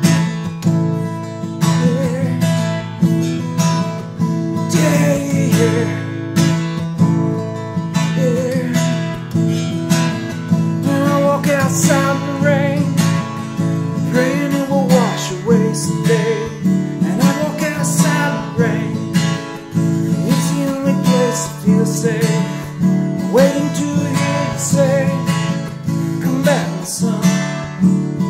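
Acoustic guitar strummed in a steady, even rhythm, playing an instrumental break between verses of a country song.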